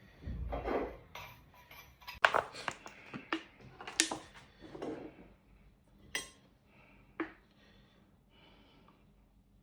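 Kitchen utensil scraping and clinking against crockery as pounded garlic is scooped out onto a plate: a run of sharp clinks and short scrapes, sparser toward the end.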